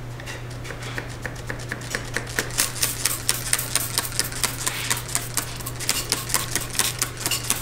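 Plastic trigger spray bottle pumped quickly over an alloy wheel: a rapid series of short, sharp squirts, several a second, over a steady low hum.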